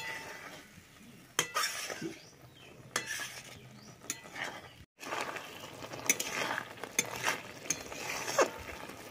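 A spatula stirring and scraping a thick goat-blood curry in a metal karahi, with irregular scrapes and clinks against the pan and the mixture sizzling as it fries. There is a brief gap of silence about halfway through.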